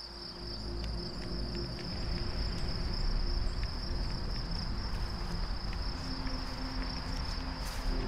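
Insects trilling steadily in one high, even tone, over a low rumble.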